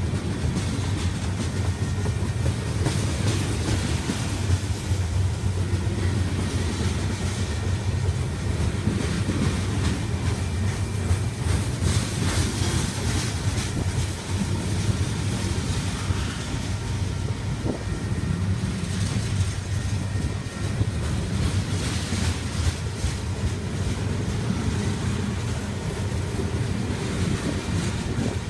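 Freight train cars, mostly covered hoppers, rolling past close by: a steady rumble of steel wheels on rail, with a run of clicks from the wheels over rail joints.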